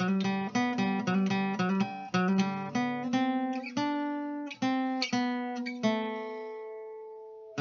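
Acoustic guitar music: a run of quick strummed and picked chords that slows, then a final chord left ringing and fading for about the last two seconds.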